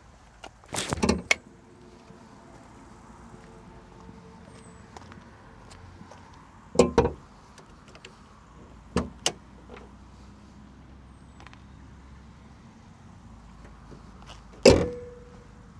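A few sharp clacks and knocks from parts of the Alpine A390's cabin being handled: a quick cluster about a second in, single knocks around the middle, and a louder one near the end that leaves a short ringing tone.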